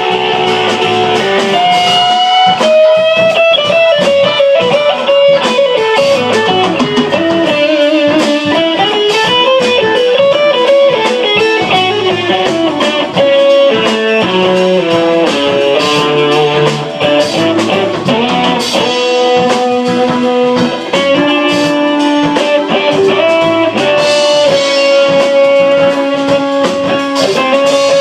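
Electric guitar solo: a bluesy lead line with sliding, bent notes over the band's accompaniment.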